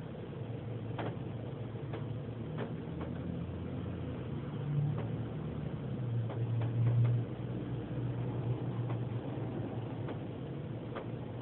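Low steady machine hum heard from inside a car, swelling briefly a little past the middle, with a few faint ticks.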